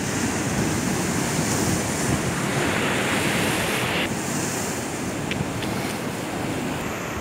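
Sea waves breaking and washing over shoreline rocks: a continuous rushing surf that swells about two and a half seconds in and eases a second and a half later. Wind buffets the microphone throughout.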